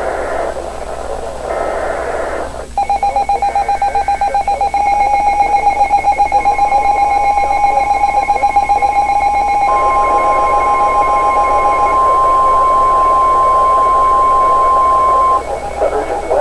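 Weather-radio emergency alert tones: a rapidly pulsing beep starts about three seconds in, then the steady warning alarm tone of a NOAA Weather Radio broadcast sounds loud and cuts off suddenly near the end. A radio announcer's voice is heard briefly at the start and again at the end.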